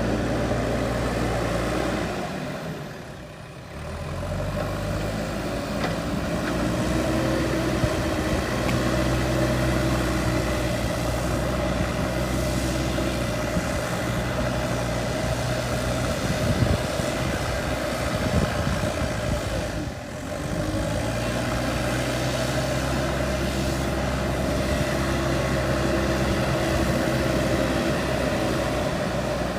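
Diesel engine of a JCB 3DX backhoe loader running steadily while the machine digs, its pitch shifting a little, with a few knocks near the middle. It drops briefly twice.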